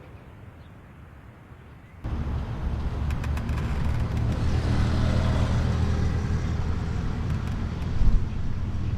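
Road traffic noise: a low motor-vehicle rumble that comes in suddenly about two seconds in and swells in the middle as a vehicle passes.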